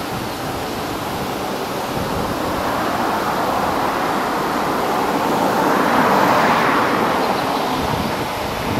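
Turbofan engines of an Embraer regional jet moving along the runway, heard from a distance as a steady rushing roar. The roar swells to its loudest about six to seven seconds in and eases toward the end.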